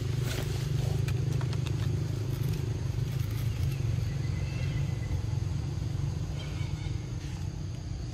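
A low, steady engine hum, easing off somewhat in the second half, with a few faint clicks in the first few seconds.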